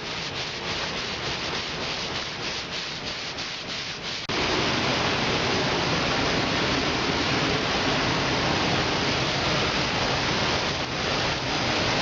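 Sanding a car fender by hand toward bare metal: quick back-and-forth rubbing strokes. A little over four seconds in it switches abruptly to a louder steady hiss.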